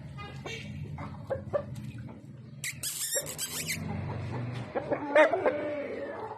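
Parrot screeching: a harsh, high screech about three seconds in, then a shorter pitched call about five seconds in, over a steady low hum.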